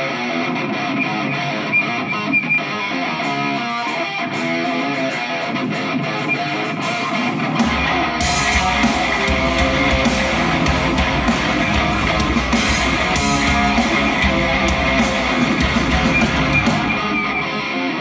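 Live rock band playing the opening of a song: an electric guitar plays the intro. About eight seconds in, bass and drums come in with cymbals, and the full band plays on loudly.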